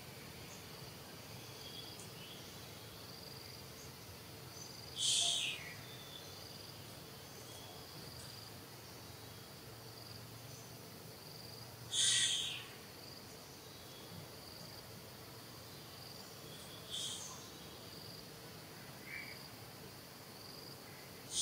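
Faint insect chirping in open country, broken by a short high-pitched animal call every five seconds or so.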